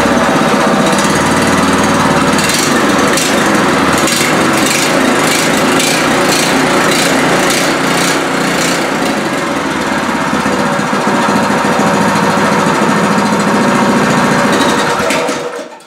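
Pro Point 208cc single-cylinder four-stroke small engine running loud and steady with its throttle opened up. The engine cuts out and winds down just before the end.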